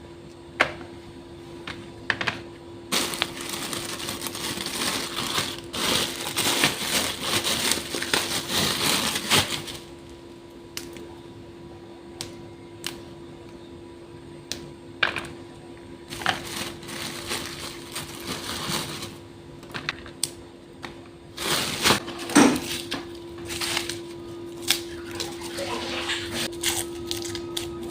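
Kitchen food-preparation handling: scattered clicks and knocks of utensils and ingredients, with several stretches of rustling, over a faint steady hum.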